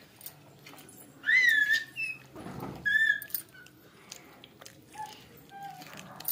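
A small domestic animal crying in short, high-pitched calls that rise and fall: two clear cries in the first half, then fainter, lower ones near the end.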